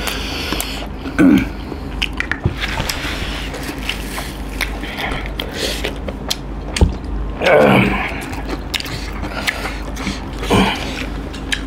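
Close-up eating sounds of people eating rice and chicken curry by hand: chewing and smacking with many small wet clicks from mouths and fingers. There are a few brief vocal noises from the eaters.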